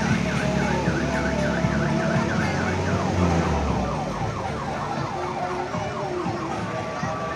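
Electronic siren sound effect from a decorated odong-odong mini tourist train, a tone rising and falling about three times a second that switches to a faster warble about two and a half seconds in. A low engine rumble runs under it and eases off about four seconds in.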